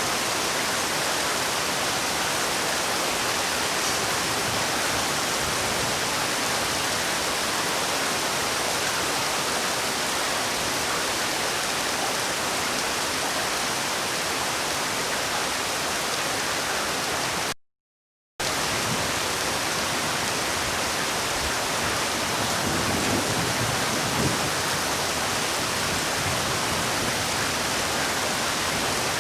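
Heavy rainfall: a steady, dense hiss of rain. It cuts out completely for under a second about two-thirds of the way through, then resumes.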